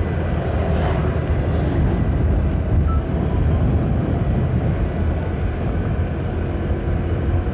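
Motorcycle riding along at steady speed, its engine running under a constant rush of wind noise on the microphone.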